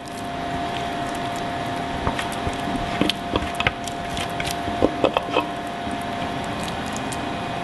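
Thick basil pesto being scraped and tipped out of a plastic food processor bowl into a ceramic bowl: a few sharp knocks and soft squishes from about two seconds in, over a steady background hum with one thin tone.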